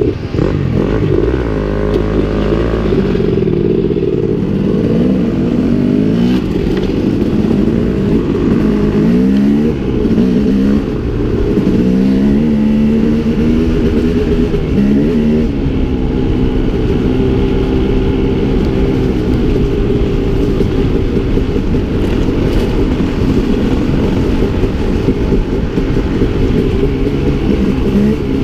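Dirt bike engine riding under load, heard close up from the bike: it revs up and falls back again and again for the first half, then holds a steadier pitch.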